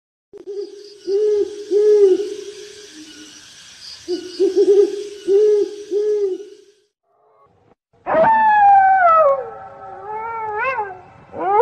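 Spooky night sound effects: an owl hooting in two runs of repeated hoots over a high hissing background, then, about eight seconds in, a long wavering howl that falls in pitch, with a second howl starting near the end.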